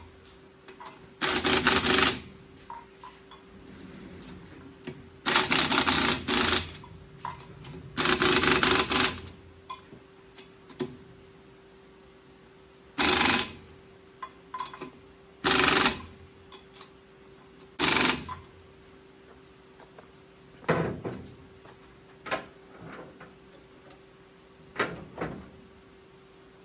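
Impact wrench running lug nuts onto a truck's rear wheels: six rattling bursts, the first three about a second long and the later ones shorter. Smaller clicks and knocks follow near the end over a faint steady hum.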